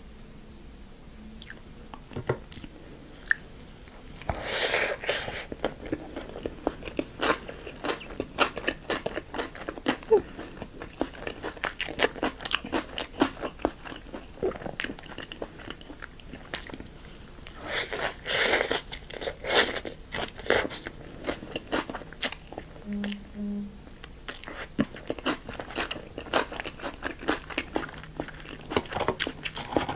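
Close-miked eating: crisp bites and wet chewing of food, with denser bouts of crunching about four seconds in and again around eighteen seconds in.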